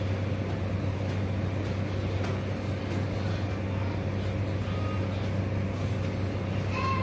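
Steady low hum with an even hiss that does not change: constant background machine noise in the room.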